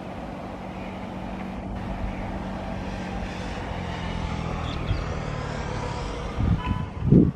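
WAG-5 electric locomotive hauling a long freight train towards the listener: a steady hum with the rumble of wheels on rail, slowly growing louder. Near the end comes a burst of loud low thumps.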